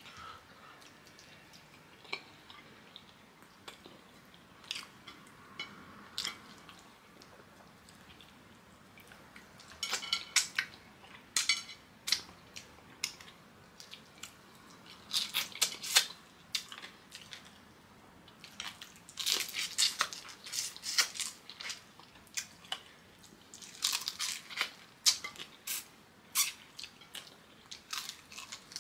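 A person eating kenkey with fried fish up close: chewing, biting and crunching that come in bursts, with quiet pauses between mouthfuls.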